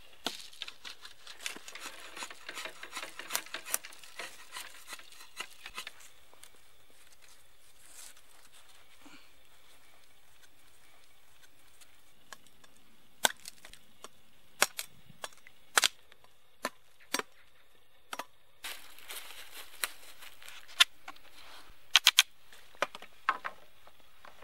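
A machete hacking at a thin sapling, a quick run of small crackling chops, for the first six seconds. Then come scattered sharp wooden knocks and clicks as sticks and a bamboo pole are handled on a stick frame.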